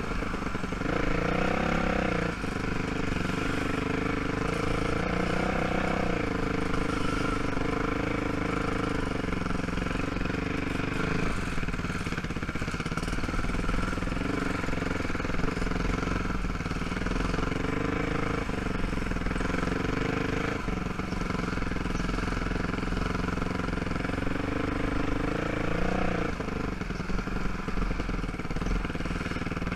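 ATV (quad) engine running at trail-riding speed, its pitch rising and falling several times as the throttle is opened and eased off.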